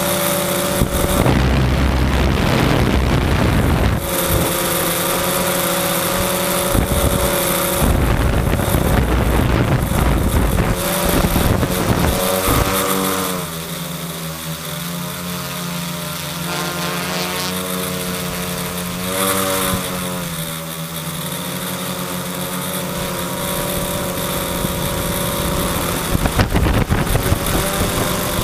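Quadcopter's electric motors and propellers whirring, heard from its onboard camera. The whine's pitch shifts as the motors change speed, about halfway through and again a few seconds later. In the first half, gusts of wind rumble on the microphone.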